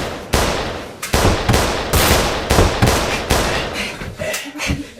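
Gunfire: a string of sharp shots at about two a second, each dying away quickly.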